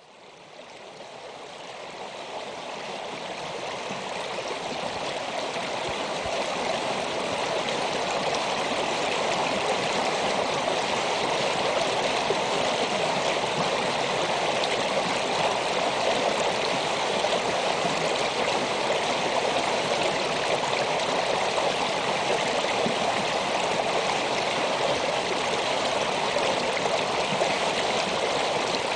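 Meltwater creek flowing around rocks, a steady rushing babble that fades in over the first six seconds or so and then holds level.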